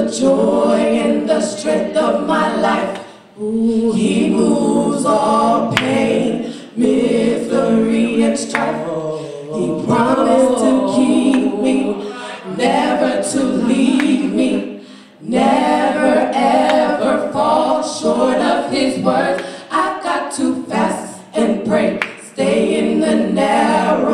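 Three women singing a gospel song a cappella in three-part harmony (soprano, alto and tenor), in sung phrases of a few seconds with short breaks between them.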